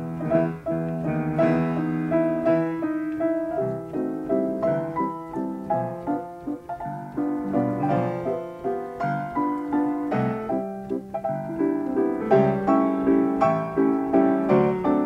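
Upright player piano playing an 88-note paper music roll: a continuous piano piece of a melody over full chords, with many notes struck in quick succession.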